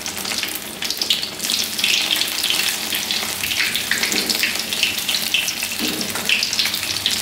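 Battered pieces of jackfruit rind deep-frying in hot oil in a wok: a steady sizzle with fine crackling throughout.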